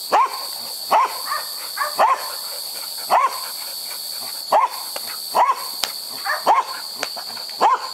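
Flat-coated retriever barking repeatedly during play, eight short, sharp barks about one a second.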